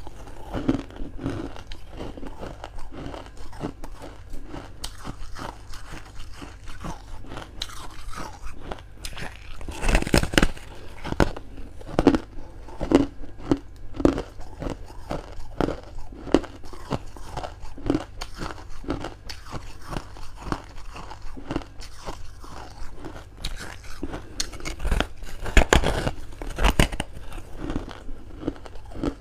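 Close-miked bites into a chunk of freezer frost followed by crunchy chewing of the ice, with louder bites about ten seconds in, again a couple of seconds later, and near the end.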